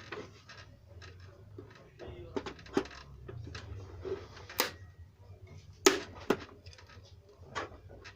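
Scattered clicks and sharp knocks of hand tools prying at a car headlight's plastic housing as the old lens is worked off. The loudest knocks come as a pair about six seconds in, over a low steady hum.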